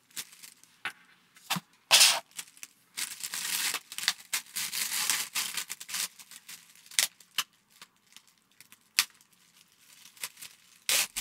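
Clear plastic bag around speaker cables crinkling and crackling as hands handle and pull at it, in irregular bursts with a few sharp clicks.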